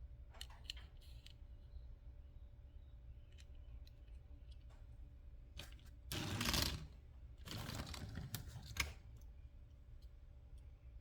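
Handling of small toy vehicles: scattered light clicks, and two longer scraping sounds about six and seven and a half seconds in, the second ending in a sharp click.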